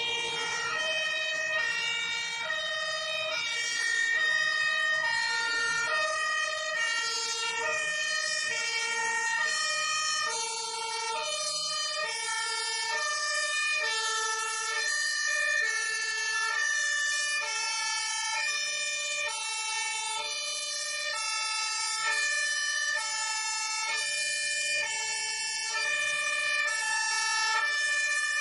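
Fire engine's two-tone siren (German Martinshorn) sounding continuously, alternating evenly between a low and a high note about once every second and a half, with a steady high tone underneath.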